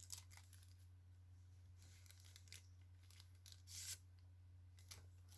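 Near silence: room tone with a steady low hum and a few faint soft clicks and brief rustles, the most noticeable a short rustle a little before the four-second mark.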